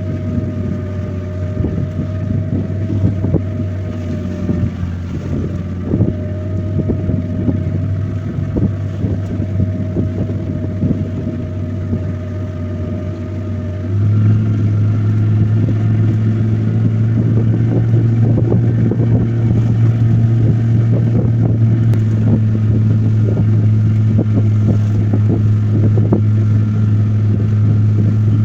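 Small fishing boat's motor running steadily under way. About halfway through it speeds up to a louder, steady drone.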